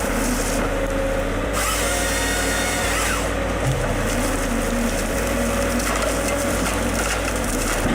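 Heavy forestry machine's cutting head sawing through timber, a steady rasping saw noise over a constant low engine and hydraulic hum.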